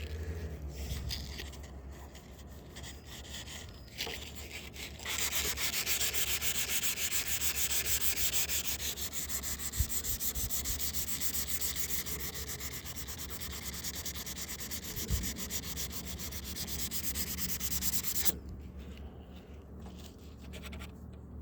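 Sandpaper rubbed by hand over a van's fender flare in fast back-and-forth strokes. It starts about five seconds in and stops suddenly near the end, with only quiet handling sounds before and after.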